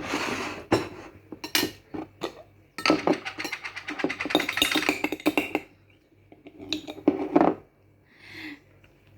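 Eating sounds: utensils clicking and clinking against a plate amid the mouth noises of eating pancit canton noodles. A dense noisy stretch runs from about three to five and a half seconds in.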